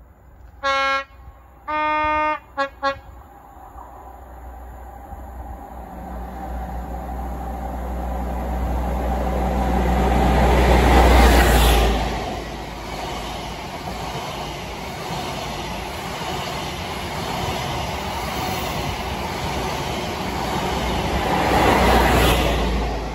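Class 43 HST power car sounding its two-tone horn, a lower note and then a longer higher note, with two short toots after. Then the Midland Pullman HST passes at speed: the noise builds to a peak as the leading power car goes by about halfway, the coaches rush past, and it swells again as the rear power car passes near the end.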